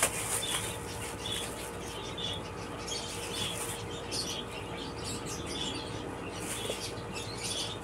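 Faint, short high chirps, bird-like, recurring every second or so, over a steady faint hum, with light rustling of a plastic bag as chilies are taken out and set on a wooden board.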